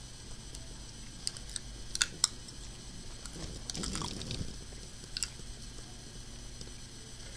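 A few sharp clicks and taps, with a short crunching noise about four seconds in, from handling and putting a torn piece of aluminium soda can in the mouth.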